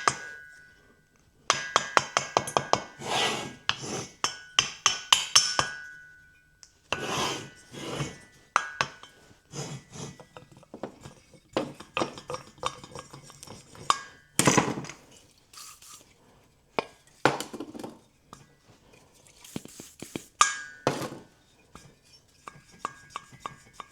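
Metal-on-metal work on a motorcycle cylinder head: a valve and hand tools clicking, tapping and scraping, with irregular sharp metallic taps, some ringing briefly, between stretches of rubbing.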